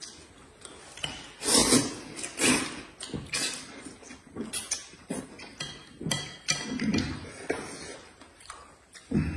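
Close-miked eating sounds: irregular bites and chewing, with a few clicks of utensils or dishes.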